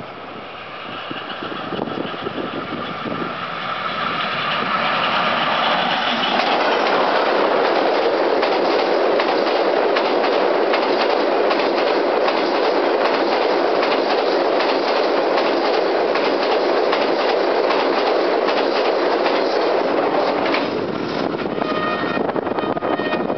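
Pakistan Railways locomotive 6010 approaching at speed, its engine note growing louder over the first few seconds. Then the train's coaches pass close by, a loud steady rush of wheels on rail with fast clicking, easing a little near the end as thin high squealing tones come in.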